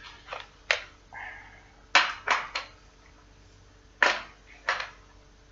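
Several sharp knocks and clatters of hard parts and tools being handled, single hits and short groups of two or three, with quiet gaps between them.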